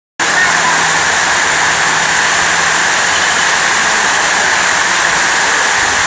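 Water curtain fountain pouring down in a steady sheet, a loud continuous rush of splashing water.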